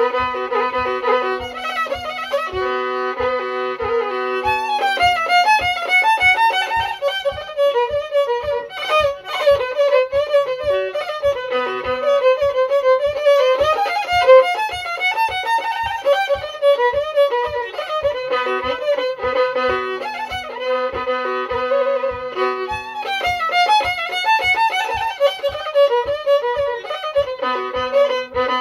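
Solo violin, handmade by its player, bowed in a continuous tune over a steady drone note held on a lower string, which changes pitch briefly twice. Under it is a low thump about twice a second that keeps the beat.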